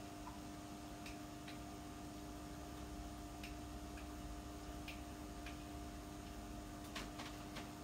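Faint steady electrical hum with faint, irregular ticks about once a second, several close together near the end.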